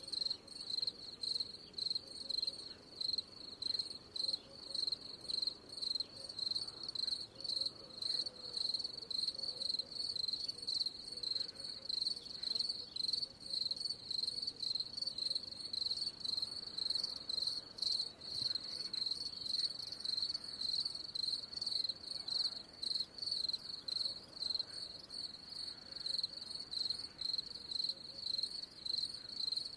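Cricket chirping steadily in a high, even pitch, about three chirps a second, without a break.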